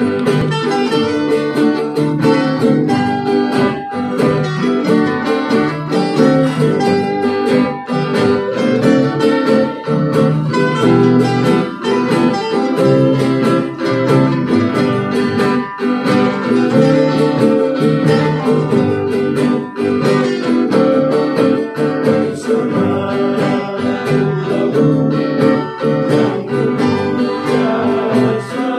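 A string band playing a song: strummed acoustic guitars and ukuleles over a hand drum, with voices singing, in a steady strumming rhythm.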